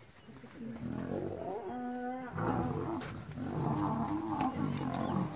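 Male lions snarling and growling in a fight, building up about a second in and loudest and harshest from about halfway through.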